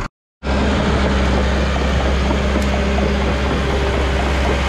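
Cat D3 crawler dozer's diesel engine running steadily close by as it works, a loud, even low hum that starts suddenly after a split-second gap.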